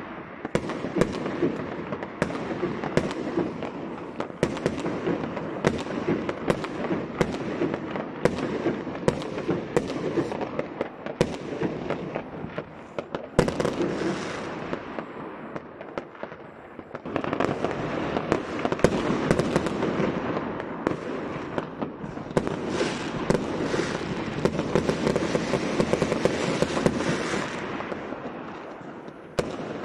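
Aerial fireworks going off in quick succession: overlapping sharp bangs and crackling bursts with no break, thinning briefly about halfway through, then building up again into a dense barrage.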